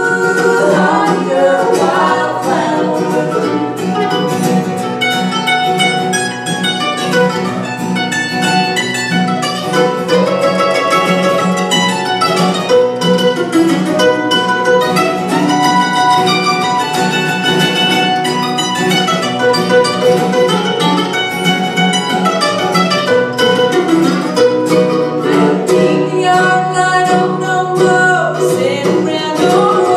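An acoustic guitar and a mandolin playing a bluegrass song together, with sung vocals over the picking.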